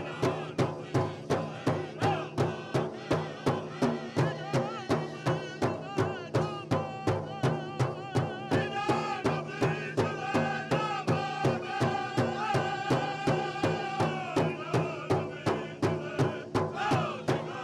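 Powwow drum group playing a Chicken Dance song: evenly spaced beats on a large shared drum, about two to three a second, under a chorus of singers' voices that is strongest through the middle.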